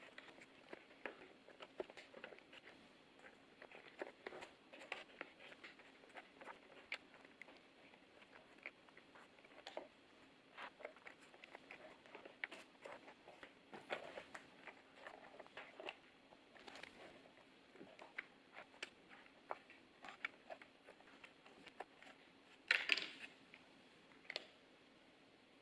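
Small plastic clicks and taps of PBT XDA-profile keycaps being picked up and pressed one by one onto the switch stems of a Hansung GK888B capacitive keyboard, irregular and faint, with a brief louder clatter near the end.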